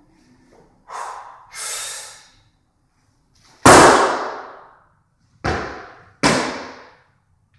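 Two sharp breaths from a weightlifter bracing, then a loud slam as his feet land on the wooden platform in a split jerk with a loaded barbell overhead. Two more stamps follow about a second and a half later, a fraction of a second apart, as the feet step back together out of the split.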